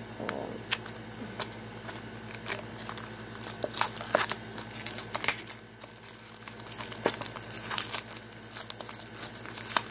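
Toy blind-pack packaging crinkling and tearing as it is handled and opened, a string of irregular sharp crackles.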